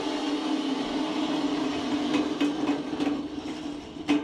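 GTD-350 helicopter turboshaft engine running hard with a steady drone, shaken by scattered metallic knocks and a sharp crack near the end. The engine has thrown a bearing and set up a fierce resonance.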